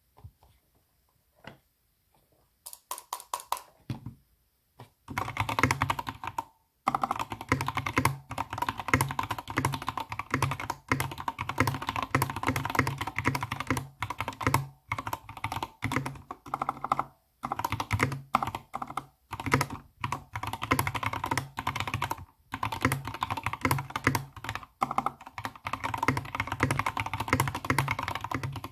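Typing on a computer keyboard: a few scattered keystrokes at first, then fast continuous runs of key clicks from about five seconds in, broken by brief pauses.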